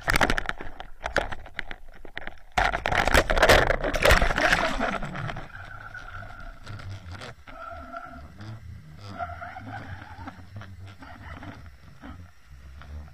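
Underwater camera being thrashed about in the water as a tiger muskie hits the lure: loud splashing and rattling knocks for the first few seconds, then quieter muffled underwater noise with a faint steady hum.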